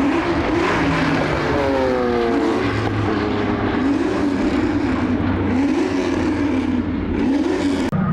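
Race car engine on the circuit, its pitch rising and falling over and over as it is driven hard, with a second engine note falling steadily in pitch about two seconds in as a car goes past. The sound cuts off suddenly near the end.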